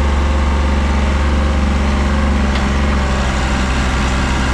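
Diesel engine of a Mahindra JIVO 365 4x4 tractor running steadily under load as it pulls on a chain hitched to a truck left in neutral. The sound is a loud, even engine note that eases slightly about three seconds in.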